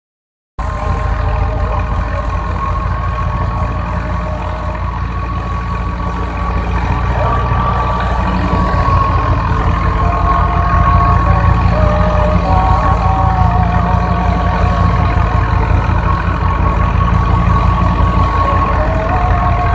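Al-Ghazi tractor's diesel engine running steadily under work, with a fast even low throb and a steady high whine over it; it starts about half a second in and gets a little louder about halfway through.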